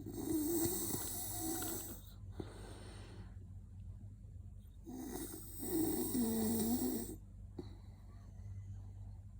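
Snoring: two long snores about five seconds apart, each about two seconds long with a wavering, droning pitch.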